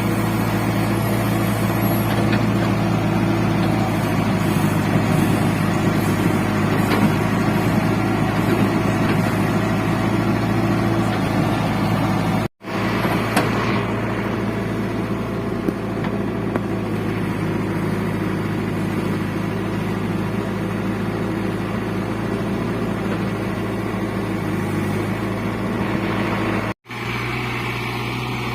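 JCB 3DX backhoe loader's diesel engine running steadily under work. The sound cuts out completely for a split second twice, about twelve and a half seconds in and near the end.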